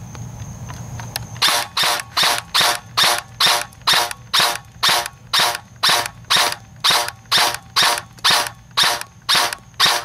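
JG M16A2 airsoft electric rifle firing a long run of single shots at an even pace of about three a second, starting a little over a second in.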